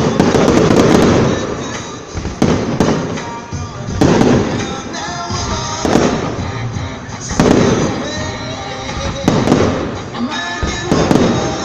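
Aerial firework shells bursting in a string of booms about every one to two seconds, with crackling between them, and music playing underneath.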